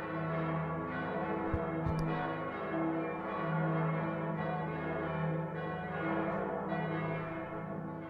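Many church bells ringing together, their strokes overlapping over a deep, steady hum: Frankfurt's Great City Ringing (Großes Stadtgeläut).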